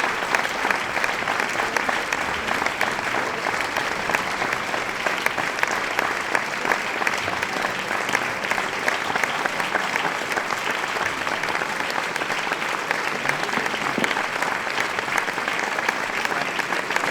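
Large crowd applauding steadily: many hands clapping at once in a dense, even wash that neither builds nor fades.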